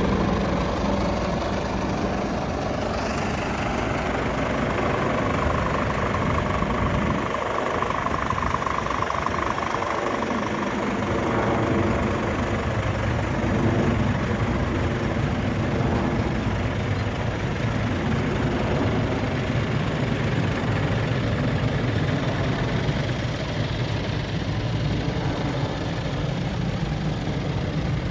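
Scania P450 truck's six-cylinder diesel engine idling steadily, with a low rumble that dips for a few seconds about seven seconds in.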